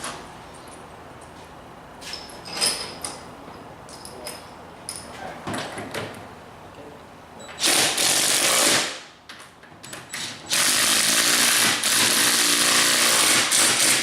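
A handheld power tool runs in two loud bursts, a short one just past the middle and a longer one of about three and a half seconds at the end, after light clinks and knocks of metal parts being handled.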